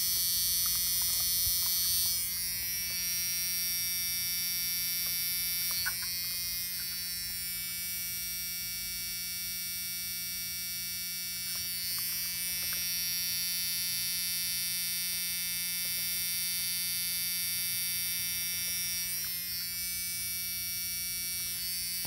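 Malfunctioning GlowShift aftermarket gauge giving off a steady electrical buzz with a high-pitched whine over it, with a few faint clicks from handling.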